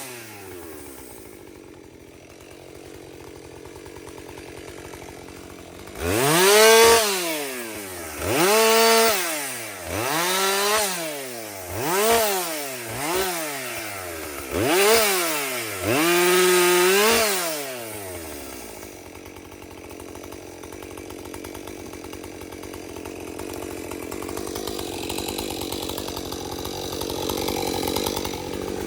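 Chainsaw engine running at low speed, then revved up and back down about six times in quick succession, each burst lasting a second or two, before settling back to a lower, steadier run.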